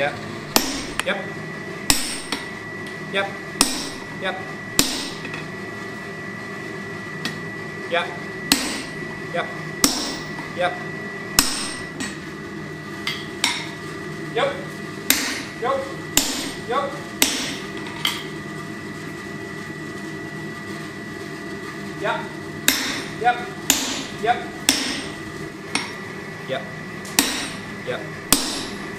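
Hammer blows on a red-hot steel block on an anvil, from a striker's sledgehammer and a hand hammer, about one to two blows a second in an uneven rhythm, over a steady hum. The blows thin out for a few seconds about two-thirds of the way through, then pick up again.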